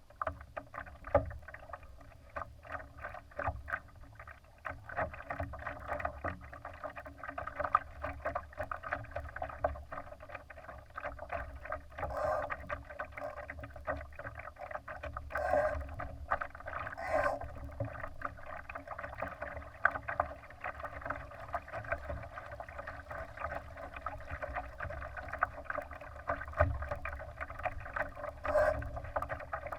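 Water slapping and splashing against the hull of a Laser sailing dinghy under way: a steady run of irregular small knocks, with a few louder splashes now and then.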